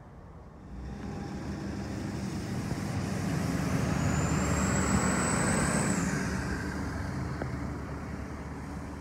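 A vehicle passing by, building up to a peak about halfway through and then fading, with a thin high squeal across the loudest part.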